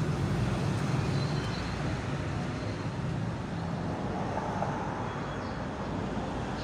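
Steady low rumble of background noise with no clear single event.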